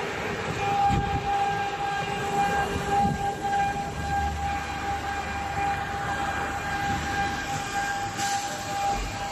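CNC router spindle running under load while carving wood: a steady high whine that sets in about a second in, over the low rumble of the cut.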